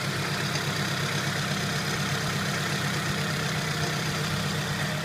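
2005 Scion tC's 2.4-litre four-cylinder engine idling steadily, a low even drone.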